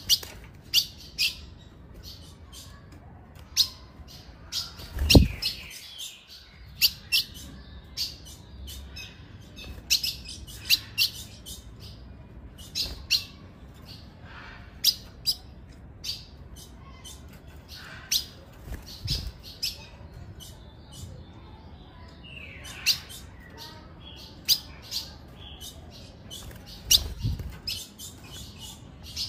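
Female ultramarine grosbeak (azulão) giving short, sharp, high chip calls, repeated irregularly about once or twice a second. Three dull low thumps break in, the loudest about five seconds in.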